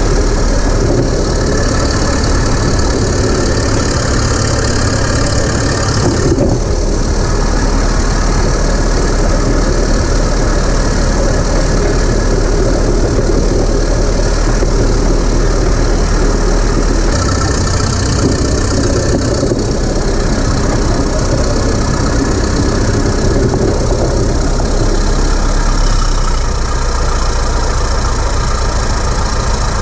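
Caterpillar D7 3T crawler dozer's diesel engine running steadily as the dozer travels. Its tone changes abruptly a few times, around six, seventeen and twenty-six seconds in.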